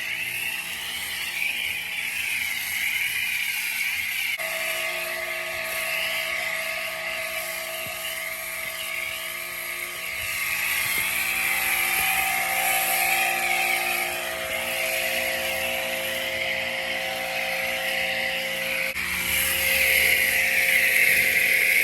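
Bauer 2300 PSI electric brushless pressure washer spraying, with a steady hiss of water throughout. The motor's whine comes in about four seconds in and drops out a few seconds before the end.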